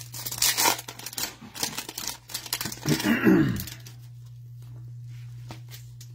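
Foil trading-card pack being torn open and crinkled, a dense crackle over the first two seconds. A short wordless vocal sound comes about three seconds in, over a steady low hum.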